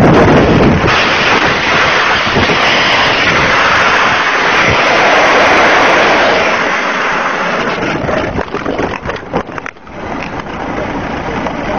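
Sport motorcycle sliding on its side along the asphalt after a high-speed crash: a loud continuous rushing scrape with wind noise. After about eight seconds it breaks up into uneven knocks and scrapes. Once the bike has come to rest, its engine is still running steadily.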